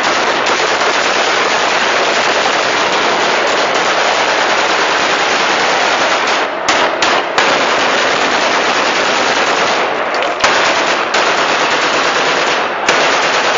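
Celebratory gunfire: many rifles fired into the air at once in a dense, unbroken barrage of automatic fire. A few sharper single shots stand out in the second half.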